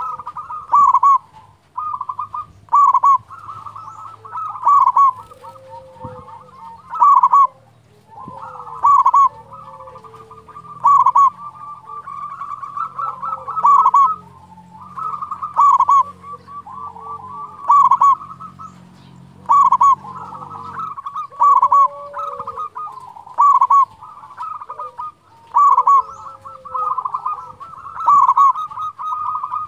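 Zebra dove (perkutut) singing its cooing song over and over, each loud phrase about two seconds apart.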